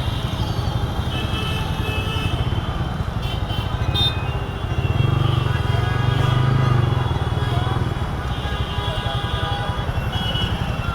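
Background music playing over a motorcycle running on the road, with steady engine and road noise underneath.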